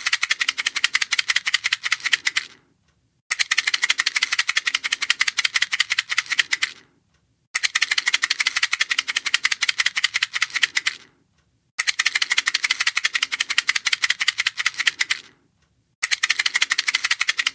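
A box of matches being shaken, the matches rattling against the box in fast, even clicks. The shaking comes in bursts of about three and a half seconds, with short pauses between them.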